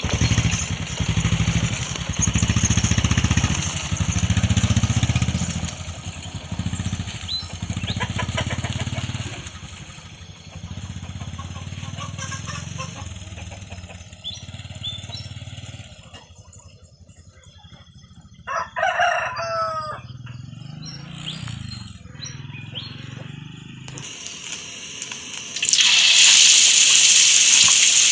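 Small motorcycle engine running with a pulsing rumble as it rides off and fades away, then a rooster crowing once about two-thirds of the way in. Near the end, a loud, steady sizzle of food frying in hot oil in a wok.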